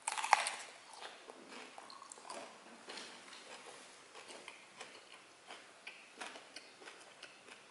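A crisp bite into a whole raw cucumber a moment in, the loudest sound, followed by close-up chewing with scattered small crunches and wet mouth clicks.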